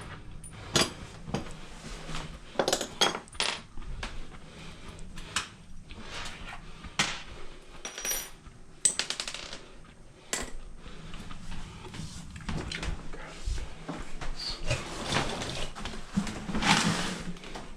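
Irregular metallic clinks and knocks of small metal parts and tools being handled, with a denser clatter near the end.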